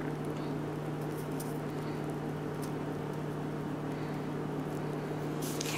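A steady low hum runs throughout. Over it come faint soft clicks and rustles from a hand-squeezed piping bag pushing out thick icing, and a louder crinkly rustle of the bag near the end.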